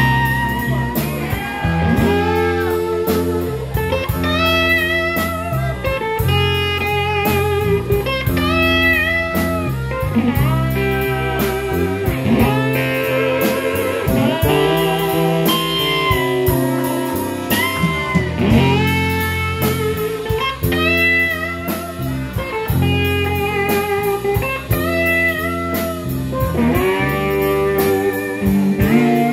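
Live band playing an instrumental number on drum kit, electric keyboard, electric guitar and trumpet, with a melodic lead line that bends and wavers in pitch over a steady drum beat.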